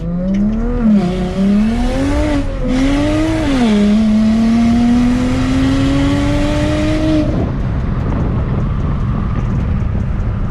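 Turbocharged BMW 335i N54 inline-six under hard acceleration, heard from inside the cabin: the revs climb through a few quick upshifts, then rise slowly in a higher gear with a loud hiss alongside. About seven seconds in the throttle is lifted and the engine note and hiss cut off, leaving steady tyre and wind noise.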